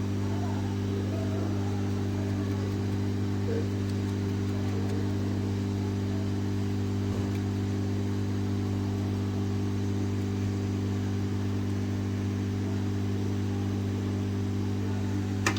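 Steady electrical hum of a running workbench machine such as a fan or motor, unchanging in pitch and level.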